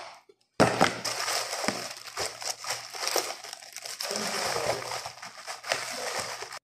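Plastic bag crinkling as it is handled, a dense run of crackles that starts abruptly about half a second in and cuts off sharply at the end.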